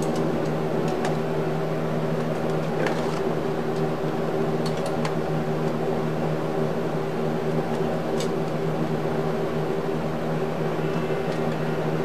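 Steady hum of an electric fan running, with a few scattered light clicks and taps as parts are handled inside an open computer case.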